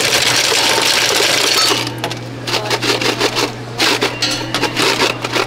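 Drink fountain's ice dispenser running, ice cubes rattling down the chute into a foam cup, which stops suddenly about two seconds in. Scattered clinks and knocks follow over a steady machine hum.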